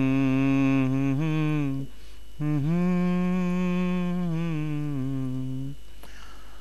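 A male voice from a ghazal recording holds two long, wordless sung notes. The first ends just under two seconds in, the second runs about three seconds and stops near the end.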